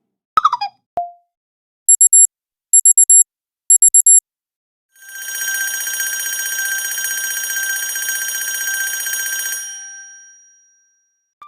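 HTC 10 stock alert tones played one after another: a short falling chime near the start, then three quick bursts of very high-pitched beeping, then a sustained buzzy electronic tone of about four and a half seconds that fades out.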